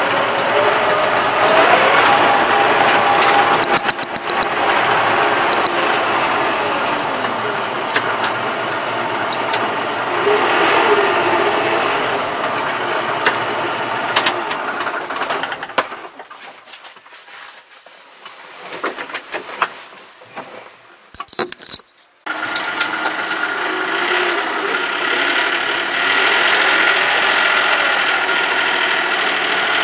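Farm tractor engine running while towing an empty flatbed trailer, with scattered rattles. It drops away for several seconds about halfway through, then comes back abruptly.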